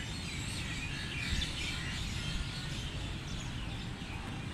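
Outdoor ambience: a steady low rumble with faint, scattered chirps of small birds and a brief low thump about a second in.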